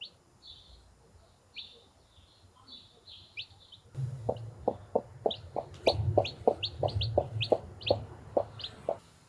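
Newly hatched chicks peeping, high falling peeps; about halfway in, a Brahma mother hen starts clucking in a rapid run of about four clucks a second, with the chicks peeping over it, until just before the end.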